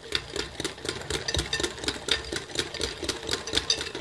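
A wire balloon whisk beating a thick batter by hand in a ceramic bowl, its wires clicking fast and rhythmically against the sides of the bowl.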